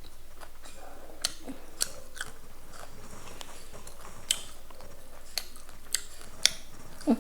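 A person eating: irregular crunchy bites and chewing, heard as scattered short clicks.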